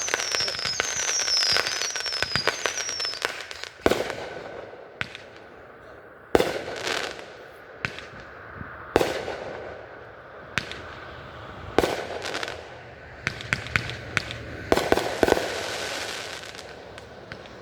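Aerial fireworks: a run of short falling whistles in the first few seconds, then a shell burst every two to three seconds, each a sharp bang with a rolling echo, with crackling between.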